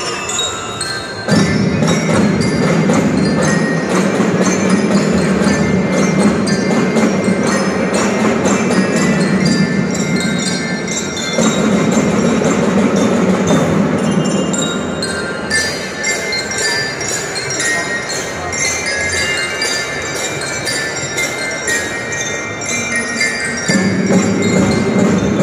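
Marching band playing: mallet bells ring out the melody over a dense beat of drum strokes and a steady low part. The full band comes in suddenly about a second in.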